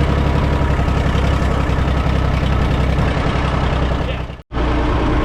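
International 454's three-cylinder diesel engine running steadily with its clogged air filter removed, no longer missing now that it gets all the air it needs. The sound cuts out for a split second about four and a half seconds in, then the engine carries on.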